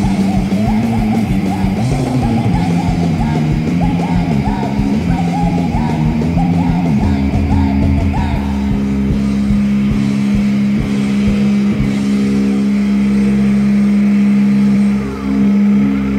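Punk band playing live: distorted electric guitar over a steady fast drumbeat. About seven seconds in the drums drop out and a distorted guitar chord is held, ringing until it cuts off near the end.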